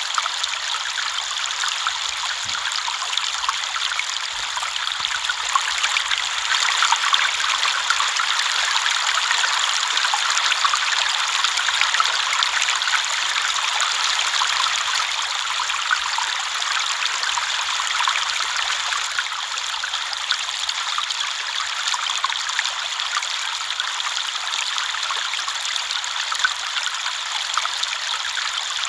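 A river flowing over stones, a steady rushing and babbling of water with small splashes throughout.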